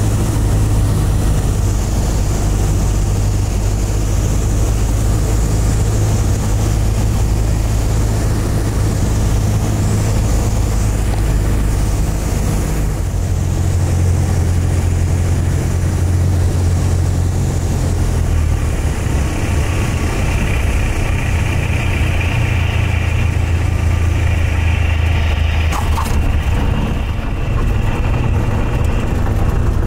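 Cessna 172's four-cylinder Lycoming piston engine and propeller droning steadily on final approach and landing. The engine note steps lower about 13 seconds in, and a hiss joins it in the last third.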